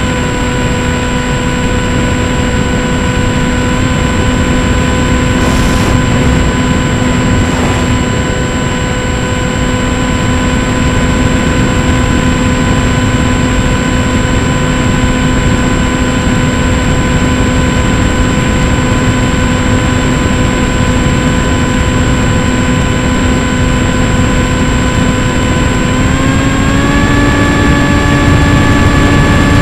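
RC model airplane's motor and propeller running at a steady cruise, one constant drone under heavy wind rush, heard from on board the plane. The pitch rises a little about 26 seconds in as the motor speeds up.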